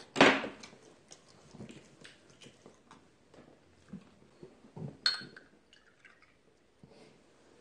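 Soju poured from a green glass bottle into a small glass, starting with a sharp clink of glass on glass about five seconds in, among a few soft knocks of handling.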